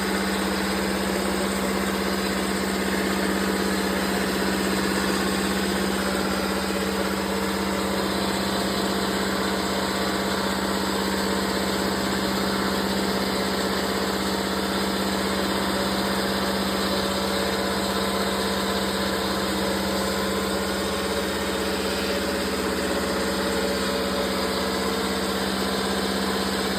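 Wabeco CNC lathe running with its spindle turning at a steady speed of about 1000 rpm: an even motor hum with a few steady tones that do not change.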